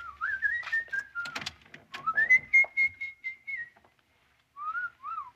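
A person whistling a short wandering tune, with one long held high note in the middle and two short swooping notes near the end, over a few scattered clicks and knocks.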